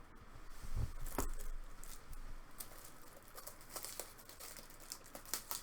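Trading cards and plastic card holders being handled: light rustling and crinkling with scattered sharp clicks, and a soft low knock just under a second in.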